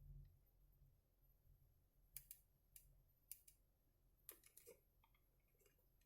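Near silence broken by about six faint, sharp clicks in the second half, small plastic parts and a charging plug being handled.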